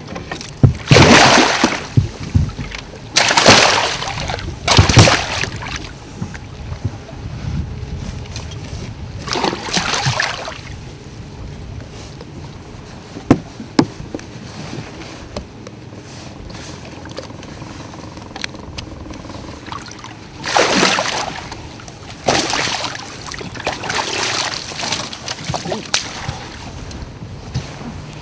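Northern pike thrashing in a landing net at the side of a boat, throwing up a series of splashes: three close together in the first few seconds, one about ten seconds in, and another cluster about two-thirds of the way through.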